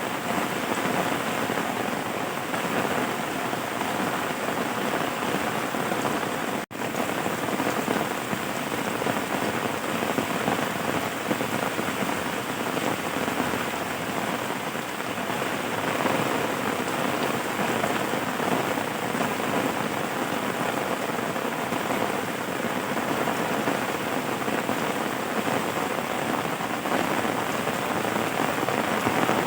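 Steady rain falling on surfaces, an even dense hiss, that cuts out for an instant about seven seconds in.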